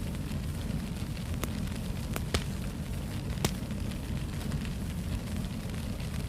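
Wood fire crackling in a fireplace: a steady low rumble of the flames with scattered sharp pops and snaps, the loudest about two and a half and three and a half seconds in.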